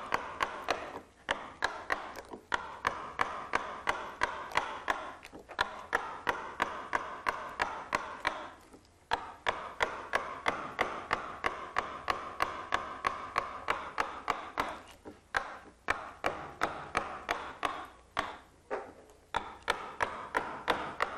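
Mallet tapping a wide 35 mm number 7 carving gouge through the wood in steady strokes, about three a second, with brief pauses between runs: roughing out waste wood with the gouge scooping out chips.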